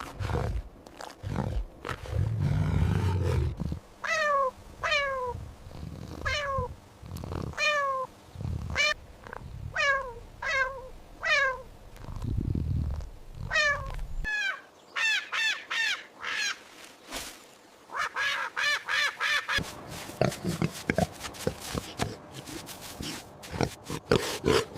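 A run of real animal calls. A low growling sound comes first. Then about a dozen short calls follow at roughly one a second, each falling in pitch, and the calls come faster and closer together in the second half.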